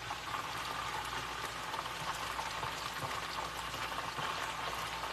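Chicken wings deep-frying in a pot of hot oil, a steady bubbling crackle.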